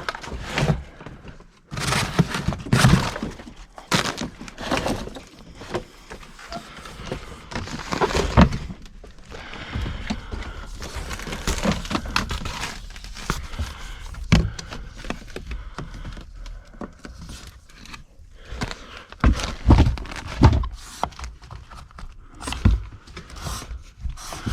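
Irregular knocks, thunks and scraping rustle of hands working electrical cable and tools at a wall, heaviest clusters about two seconds in, around eight seconds and near the end.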